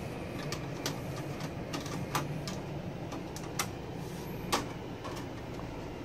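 Scattered sharp clicks and ticks of a PC case's side-panel thumbscrews being loosened by hand, about eight in a few seconds, over a steady low hum.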